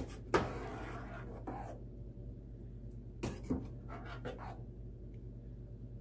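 Metal spoon stirring a chunky tomato soup in a stainless steel saucepan, with a few sharp clinks and scrapes against the pot near the start and again about three seconds in, over a low steady hum.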